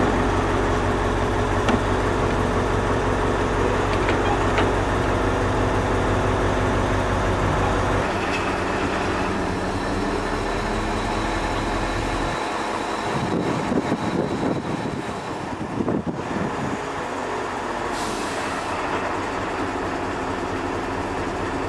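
A mobile crane's diesel engine running steadily. Its note changes about eight seconds in and again about twelve seconds in.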